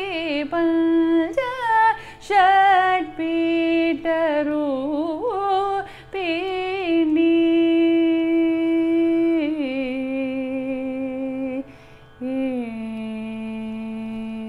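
A woman's voice singing a Carnatic phrase in raga Devagandhari on a vowel, without words, winding through sliding ornaments and then settling onto long held notes. Near the end it comes down to a low note held steadily, the closing cadence of the song.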